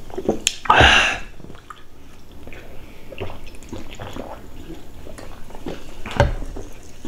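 Two people drinking from aluminium cans, with soft gulping and swallowing. A short loud hiss comes about a second in, and a low thump a little after six seconds.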